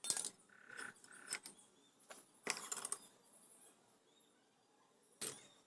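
A few faint, scattered clicks and clinks of small metal parts being handled, with near silence between them; the last one, near the end, is the sharpest.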